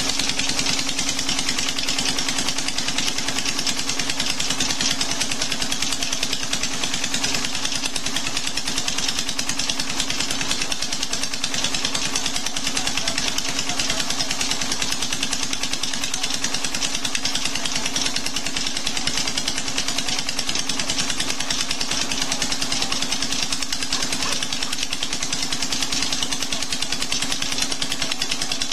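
Petter diesel engine running steadily at constant speed on straight jatropha oil, with a fast, even beat of firing strokes and a steady hum.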